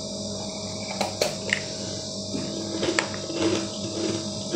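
Biting and chewing frozen green ice, with a few sharp crunches about a second in and again near the three-second mark, and softer chewing in between. A steady low hum runs underneath.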